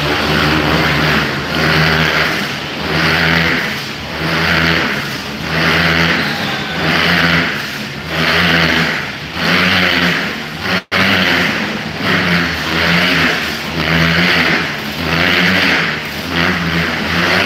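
Motorcycles circling inside a steel-mesh globe of death, their engines revving hard and swelling and fading in a steady rhythm, a little more than once a second, as they loop past. The sound cuts out for an instant about eleven seconds in.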